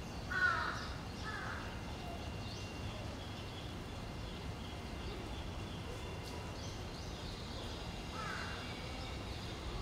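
Harsh bird calls over a steady low background rumble: two short falling calls in the first second and a half, and one more about eight seconds in.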